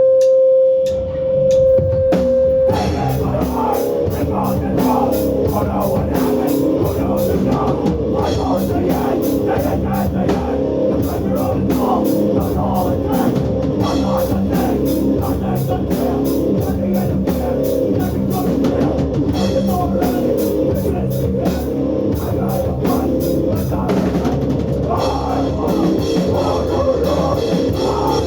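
Live hardcore power-violence band. A single steady feedback tone is held for the first couple of seconds, then the band crashes in with loud distorted guitars and fast, dense drumming that carries on without a break.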